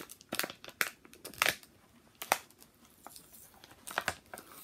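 Small plastic action-figure pieces being handled and fiddled with in the hands: a string of irregular clicks and crinkles, about a dozen over the few seconds.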